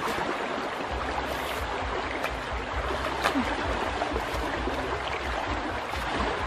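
Shallow river water sloshing and splashing steadily as a fishing net is dragged through it by hand.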